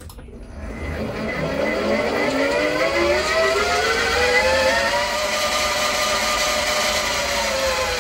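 Milling machine spindle motor speeding up, its whine rising in pitch for about four seconds, then running steady and dropping slightly near the end as the end mill is traversed through the metal to cut a channel.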